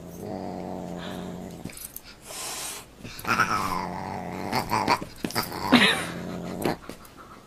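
Pets play-fighting: a low, steady growl in two long stretches, broken by louder, higher cries about three seconds in and again near six seconds.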